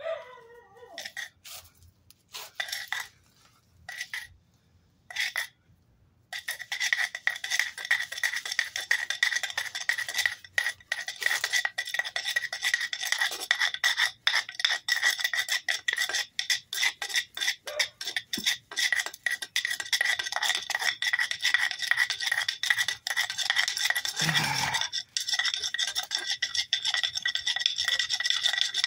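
A wooden board is rolled hard back and forth over a fire roll on concrete, making a rapid, gritty scraping and rubbing. A few short strokes are followed, about six seconds in, by fast continuous strokes that rub the roll hot toward an ember.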